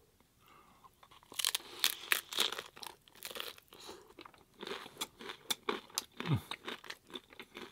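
Crispy hard-shell taco crunching loudly as it is bitten into about a second and a half in, followed by crunchy chewing, close-miked.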